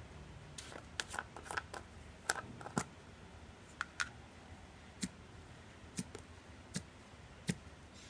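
A run of sharp clicks and pops: a quick irregular flurry over the first few seconds, then single clicks about once a second.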